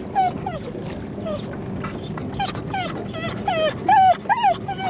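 A dog whining and yipping in a fast run of short, high, rising-and-falling calls, louder near the end. It is worked up over a large animal in the water beside the boat.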